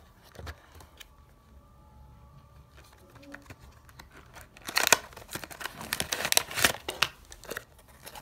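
Hands opening a fidget spinner's cardboard box and pulling out its plastic blister tray: rustling, scraping and crinkling of card and plastic packaging, busiest from about halfway through, after a few small clicks.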